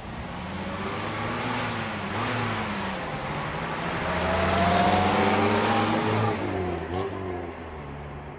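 Toyota Carina TA12's OHV four-cylinder engine, heard from outside as the car drives by, its revs rising and falling. It is loudest about two-thirds of the way through, then fades, with a sharp click about seven seconds in.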